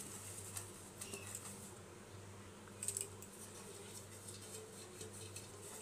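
Faint light scrapes, rubs and small clicks of a hand spreading oil inside a cake mould, the loudest cluster about three seconds in, over a low steady hum.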